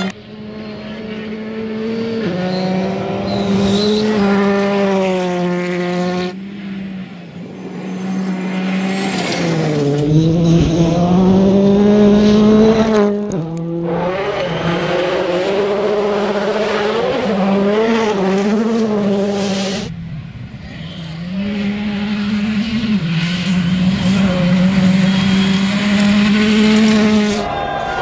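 Four World Rally Championship rally cars in turn, each under hard acceleration, their turbocharged four-cylinder engines revving high and dropping through gear changes, with gravel and tyre noise underneath. There is a sharp drop and climb in engine pitch about ten seconds in, and the sound cuts abruptly from one car to the next three times.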